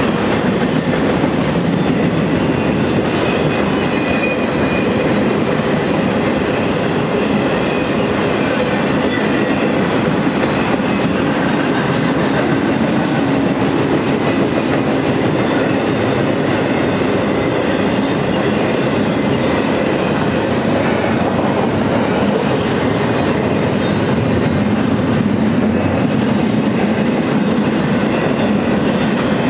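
Cars of a double-stack intermodal freight train rolling past close by: a steady rumble of steel wheels on the rails, with a faint high wheel squeal about three to four seconds in.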